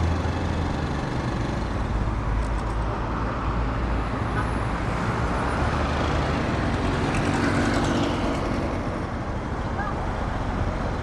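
City street traffic: a steady mix of car engines and road noise with a low rumble, swelling slightly partway through as vehicles pass.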